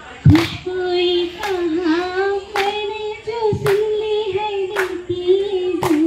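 A woman singing into a microphone, amplified through a portable speaker, the melody held in long notes. A sharp beat sounds about once a second.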